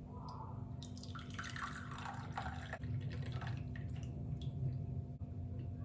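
Freshly brewed quince-leaf tea being poured into a cup: a trickle of liquid, strongest for about two seconds near the start, then drips and a few light clicks.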